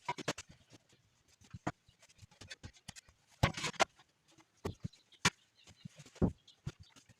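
Shovel working in wet, heavy sawdust: irregular scrapes, clicks and knocks, with a longer scrape about three and a half seconds in and a dull thud near the end.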